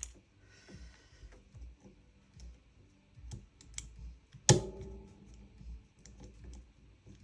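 Small metal and plastic parts of a gas-blowback airsoft gun's trigger housing clicking and tapping as they are handled and taken apart, with one sharper clack and a brief ring about four and a half seconds in.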